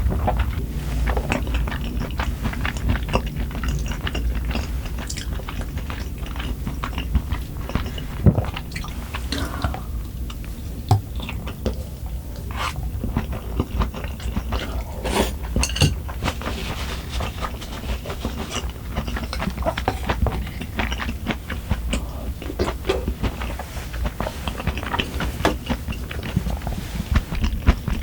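A person chewing and biting food close to the microphone, with wet chewing and crunchy bites and now and then a clink of cutlery on dishes.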